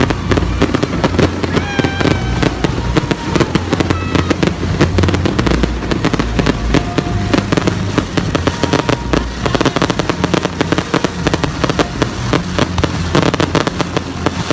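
Fireworks display: a dense, continuous run of popping bangs and crackles over a low rumble, with voices in the background.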